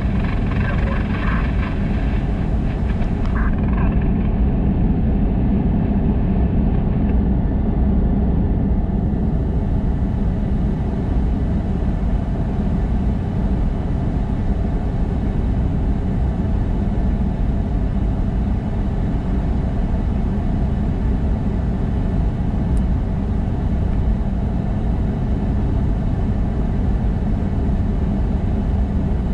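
Steady low rumble of a vehicle being driven: engine and road noise, even throughout.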